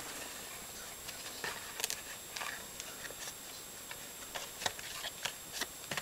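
Faint, scattered rustles and light taps of a small cardboard box and a paper insert being handled, with one sharper click a little before the end.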